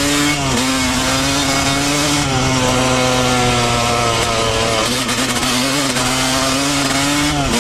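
Yamaha YZ250 two-stroke dirt-bike engine under load at speed in third gear, running at a high, steady pitch that shifts a few times as the throttle is worked.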